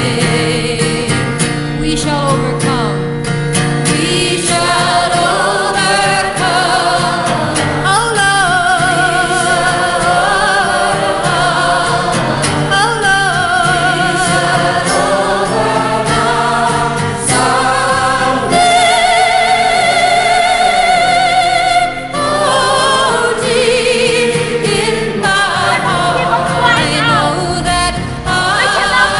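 Music with a group of voices singing together, choir-like, with a brief dip about two-thirds of the way through.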